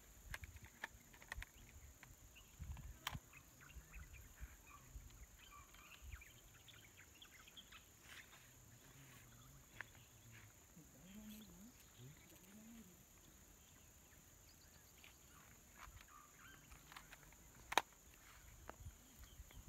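Near silence: faint outdoor ambience with scattered light clicks and rustles. A faint low call rises and falls twice a little past halfway. One sharp click comes near the end.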